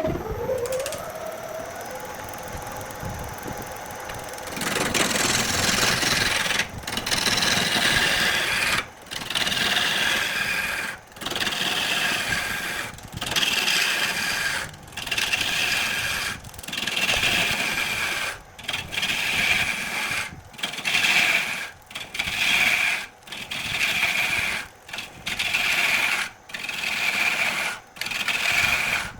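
Wood being turned on a lathe, a tool scraping and cutting the spinning workpiece in repeated strokes with short breaks between them, at first about every two seconds and later about once a second. Before that comes a falling tone that settles into a steady hum for about four seconds.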